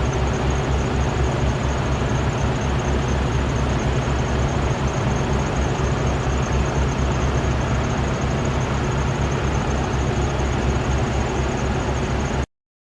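Vacuum excavator truck running steadily, a heavy diesel drone with a thin high whine over it. The sound cuts out abruptly for a moment near the end.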